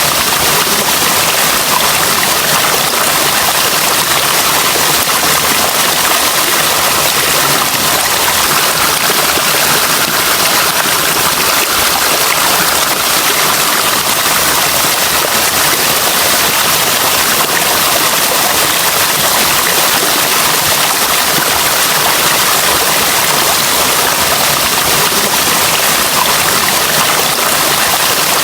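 Running water: a steady, bright, even rush that does not change.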